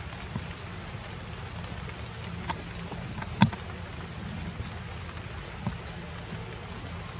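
A few sharp knocks and clicks from a plastic milk bottle being handled by a baby monkey, the loudest about three and a half seconds in, over a steady low rumble.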